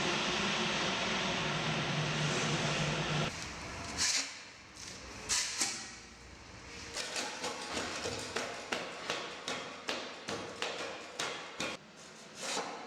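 A machine running with a steady low hum that cuts off suddenly about three seconds in, followed by a few loud sudden clatters and then a fast series of sharp knocks, about three a second.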